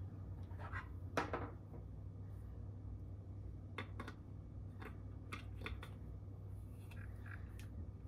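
Hard plastic parts of a PVC figure clicking and scraping as a clear splash piece is handled and fitted against the figure's base, in short scattered strokes with the loudest scrape about a second in. A steady low hum runs underneath.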